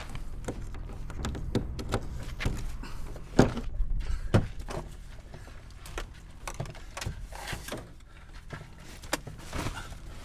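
Van driver's door being opened and someone climbing into the cab: handle and latch clicks and a series of knocks and thunks, the loudest about three and a half and four and a half seconds in.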